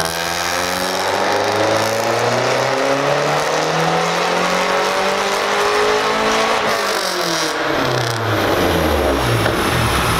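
Turbocharged 2.3-litre four-cylinder of a Mazdaspeed3 at full throttle on a chassis dyno, revs climbing steadily for about six and a half seconds in one gear. The throttle then closes and the revs fall quickly back toward a low, rough idle near the end.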